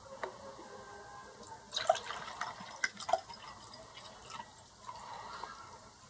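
Water poured from a plastic jug into a glass tumbler, splashing and trickling as the glass fills, beginning about two seconds in.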